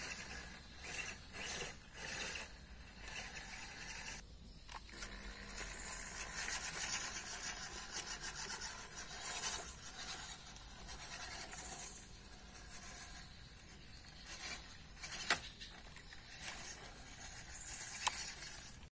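Electric motor and gears of an MN99S scale RC crawler, running in stops and starts as it drives over stones, leaves and mud. Two sharp clicks come near the end.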